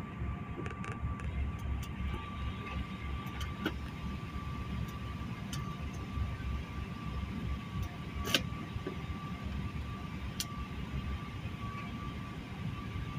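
Airliner cabin noise on the ground: a steady low rumble with a thin, steady whine over it, and a few faint clicks, the loudest about eight seconds in.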